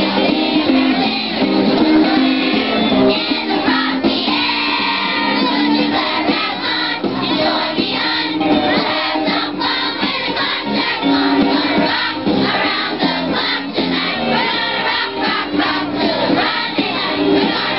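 Elementary-school children's choir singing a Christmas song.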